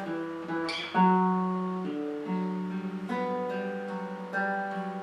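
Acoustic guitar played on its own, chords picked note by note so that the strings ring over one another. A harder stroke comes about a second in.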